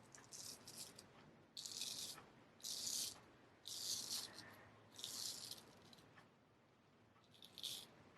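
Straight razor scraping through stubble in short, crisp strokes, about six of them, roughly one a second, with a pause of a second or so near the end.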